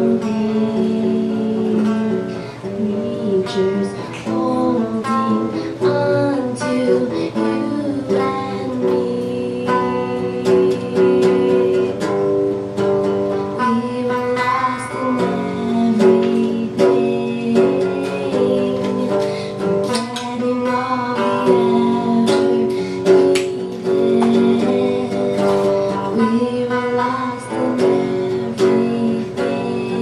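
Live song: an amplified semi-hollow electric guitar played as accompaniment under a singer's voice.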